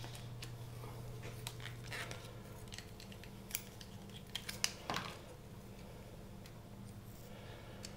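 Suture scissors snipping through the tough plastic of a grinding tray (bruxism guard) as it is trimmed: irregular sharp snips, thickest around the middle, over a faint steady low hum.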